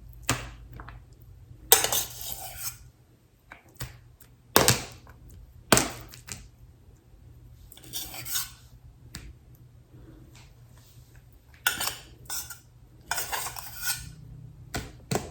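A serving utensil scooping cooked rice from a pot and knocking it into meal-prep containers: irregular scrapes, clinks and a few sharp knocks.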